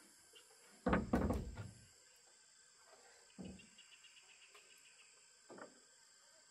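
Wooden roof boards knocking and clattering as they are handled and set down on a timber roof frame: a loud clattering knock about a second in, then two shorter, duller knocks. A steady high insect drone runs underneath.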